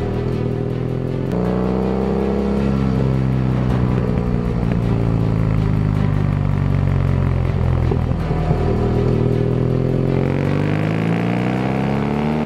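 Motorcycle engine running while riding. Its pitch eases down slowly over several seconds, with a step about a second in, then climbs steadily near the end.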